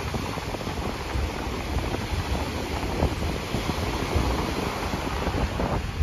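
Wind buffeting the microphone over the steady wash of Atlantic Ocean surf.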